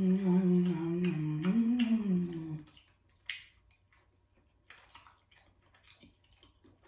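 A woman's closed-mouth "mmm" hum while eating, lasting about two and a half seconds and rising then falling in pitch near its end. After that come faint scattered clicks and smacks of chewing and picking at food.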